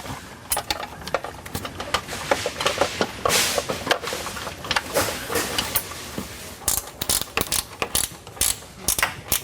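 Hand socket ratchet clicking in short, irregular runs of sharp clicks as a bolt is worked, likely the battery hold-down.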